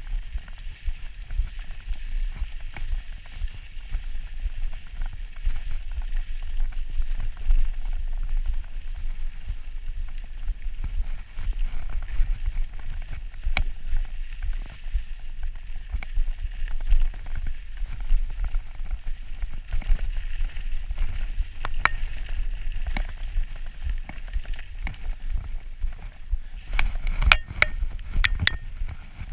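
Mountain bike riding fast downhill on a dirt trail: wind rumbling on the camera's microphone over the tyres on dirt and the bike rattling over bumps, with a quick cluster of sharp clicks and knocks near the end.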